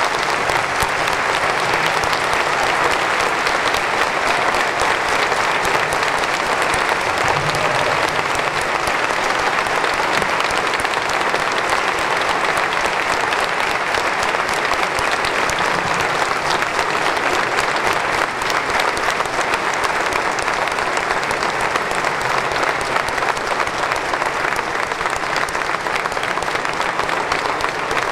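A large audience applauding steadily without a break, a dense mass of clapping that fills a cathedral.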